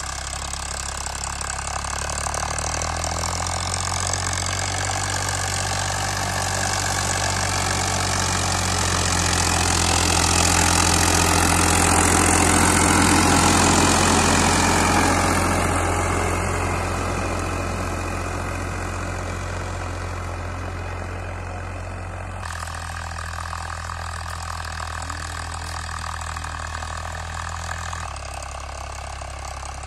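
Farmtrac 60 tractor's diesel engine running steadily under load while pulling a disc harrow. It grows louder as the tractor passes close by, about halfway through, then fades as it moves away.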